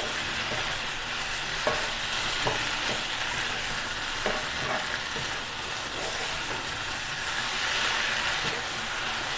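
Chicken pieces frying in ghee in a wide kadai, a steady sizzle, with a spoon stirring and scraping the pan now and then. The masala is still cooking off its last moisture as it dries onto the chicken.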